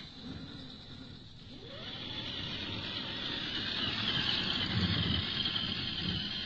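Electric motor and gear drive of an Axial SCX10 II Jeep Cherokee RC crawler whining, rising in pitch about two seconds in as it powers up, then holding a steady high whine as its tyres churn through deep snow.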